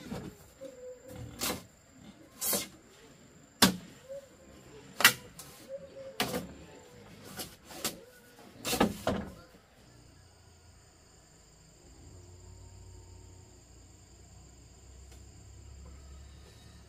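A series of sharp knocks, about eight over the first ten seconds, irregularly spaced with two or three close together near the end of the run. Then a quieter stretch with a steady high-pitched drone.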